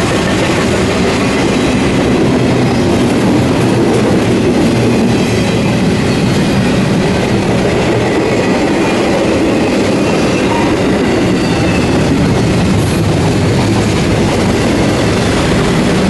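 Double-stack intermodal freight train passing close by at speed: a loud, steady rumble of its cars' wheels running on the rails.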